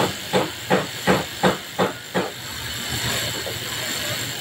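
Industrial steam iron pressing a folded fabric waistband strip, with a steady hiss of steam. Over the first two seconds a quick, even run of knocks, about three a second, sounds, then stops, leaving the hiss.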